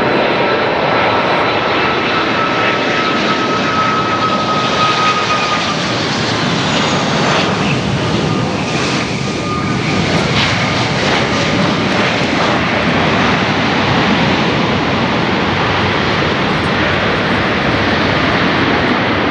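The four jet engines of a Boeing 747-400F freighter as it lands and rolls out on the runway: a steady, loud engine roar, with a high whine that slides slightly lower in pitch as the aircraft passes.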